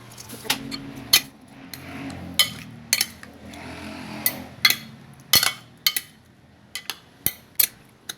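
Kitchen utensils and dishes clinking and knocking together in an irregular run of sharp taps, as food is handled in bowls.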